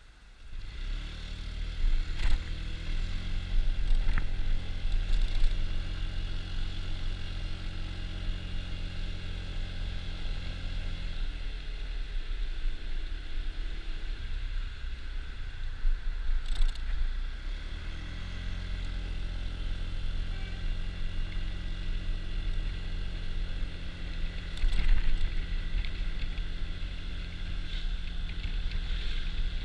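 Honda Dio scooter's engine pulling away from a standstill and running steadily under way. It eases off to a quieter coast about midway before picking up again, with a few sharp clattering knocks along the way.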